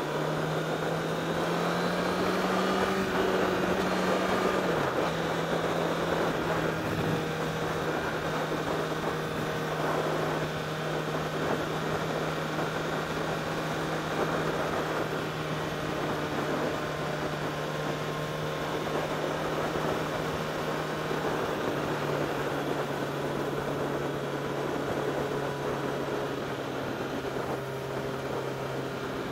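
Honda CBR1000RR Fireblade's inline-four engine running at steady cruising revs under a constant rush of wind and road noise. The engine note rises slightly about two seconds in, dips briefly about five seconds in, and settles to a lower steady pitch about twenty-two seconds in.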